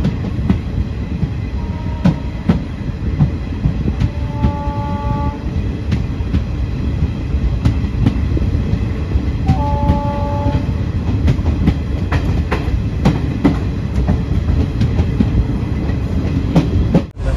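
Indian Railways Garib Rath Express train running along the track: a steady heavy rumble with rail-joint clicks. A train horn sounds twice, a few seconds apart, each blast about a second long.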